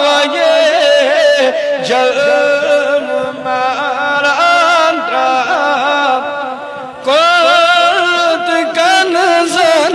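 Kashmiri naat music: a melodic passage with a wavering, ornamented line. It drops in level just before seven seconds in, then comes back louder.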